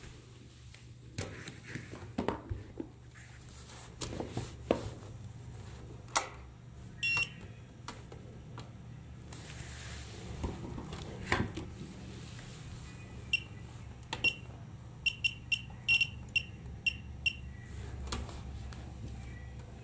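Programmable bench DC power supply beeping as its buttons are pressed, about ten short high beeps in the second half, after scattered clicks and knocks of handling. A low steady hum runs underneath.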